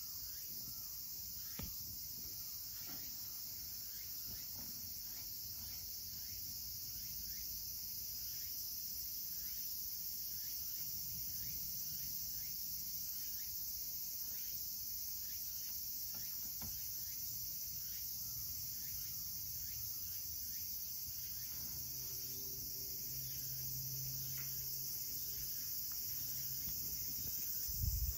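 Steady, high-pitched chirring of insects. Near the end there is a thump as the phone is picked up and moved.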